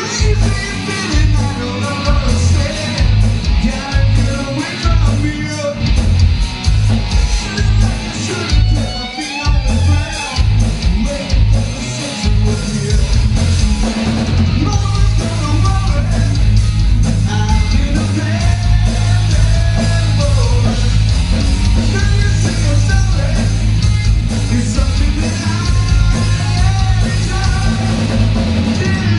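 Live rock band playing heavy metal with a singer, electric guitar, bass and drums. The band hits in short stop-start stabs for the first half, then settles into a steady sustained groove.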